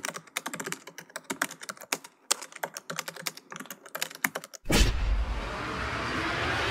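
Rapid, irregular clicking of computer keyboard typing. About two-thirds of the way through it stops and a steady rushing noise with a low rumble takes over.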